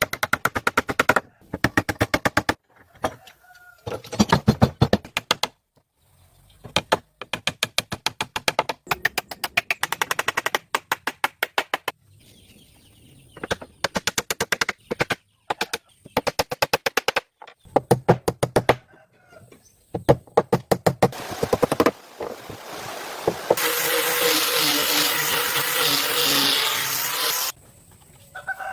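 Woodworking power tools: repeated short bursts of rapid, machine-gun-like clatter with brief pauses between them, then a steady whirring power tool running for about four seconds near the end.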